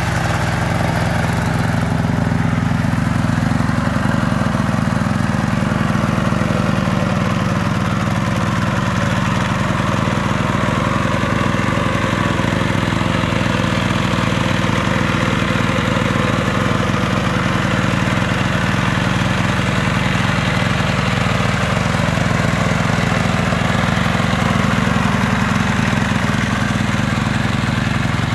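Single-cylinder Yanmar diesel engine of a two-wheel hand tractor running steadily under load as the tractor churns through deep paddy mud.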